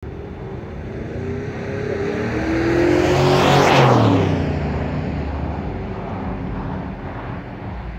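A car passing by on the road: engine and tyre noise swell to a peak about four seconds in, the engine note dropping in pitch as it goes past, then fade away.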